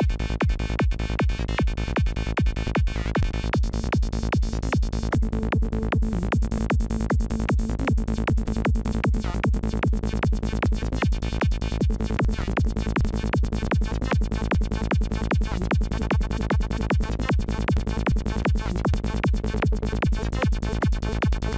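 Looped psytrance section: a kick and rolling bass pulse evenly under a percussive mono synth lead from NI Massive. The lead's oscillators restart on each note (retriggered via gate) and its sound is shaped through a band-reject filter.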